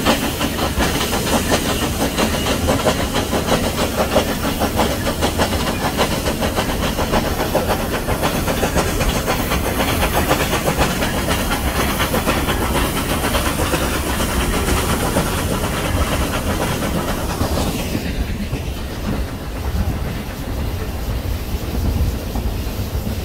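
Nilgiri Mountain Railway steam train heard from aboard a coach: wheels clattering on the track under a steady steam hiss from the locomotive. The hiss fades away about 18 seconds in, leaving the running and clatter of the coaches.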